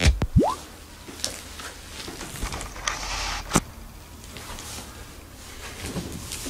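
Quiet room noise with a few faint, isolated clicks and knocks, the clearest about three and a half seconds in, after a short rising sweep just after the start.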